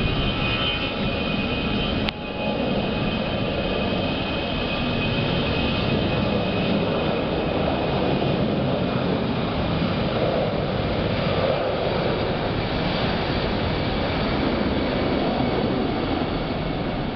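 Jet engines of an easyJet Airbus airliner running loudly at take-off, a dense steady noise with a high whine over the first couple of seconds. A single sharp click about two seconds in.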